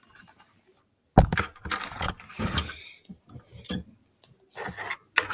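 A sharp knock on a tabletop about a second in, then irregular scraping and handling noises of plastic tubs and fondant being moved about close to the microphone.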